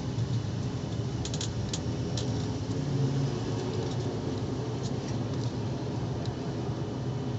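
Steady low drone inside an airliner cabin just after landing, with a few light clicks and rattles, a cluster of them about a second in and single ones later.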